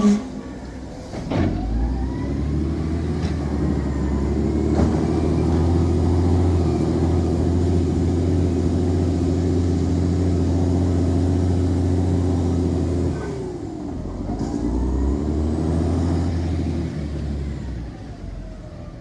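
An engine running steadily with a low hum, dropping away about thirteen seconds in and then picking up again.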